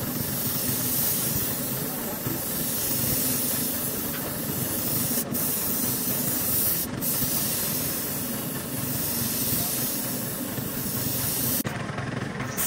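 Steady hissing noise, brightest in the highs, with a short break in the high hiss near the end.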